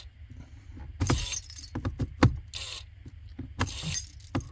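Clicks and short rattling bursts as the car key is handled and the Mercedes W204 electric steering lock's motor drives its locking bolt out, locking the steering.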